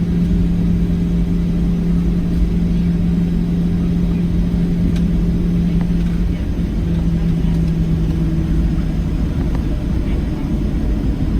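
Cabin noise inside a Boeing 737-700: its CFM56 engines give a steady hum over a deep low rumble. The hum fades out about nine seconds in while the rumble carries on.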